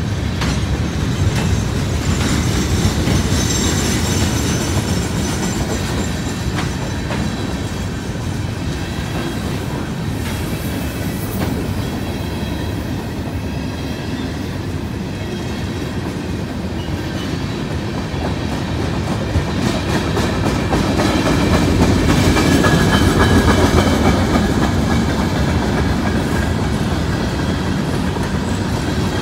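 Freight cars of a long mixed manifest train (tank cars, gondolas and covered hoppers) rolling past: a steady, loud rumble of steel wheels on rail with thin high tones above it. It swells louder about two-thirds of the way through.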